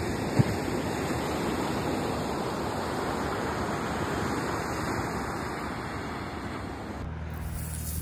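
Steady rush of wind and calm-sea surf at the shoreline, with one sharp click about half a second in. About seven seconds in it cuts abruptly to the low steady hum of a car's cabin on the road.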